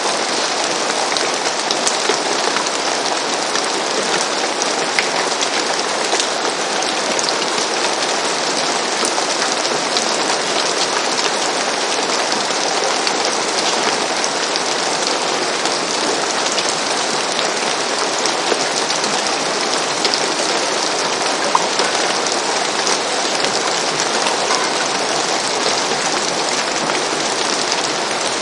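Steady rain falling on a roof, a dense even hiss of drops with many small individual drop ticks.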